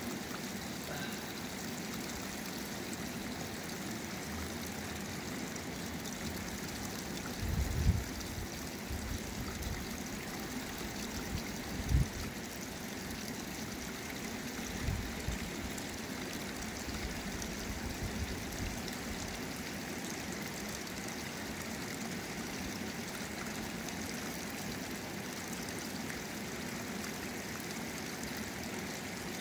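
Shallow stream running steadily over rocks, with the pool's overflow spout pouring into it. A few brief low thumps come through, the loudest about 8 and 12 seconds in.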